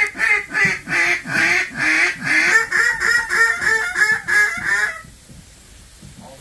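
A rapid, evenly spaced series of loud duck quacks, about three a second, that stops abruptly about five seconds in.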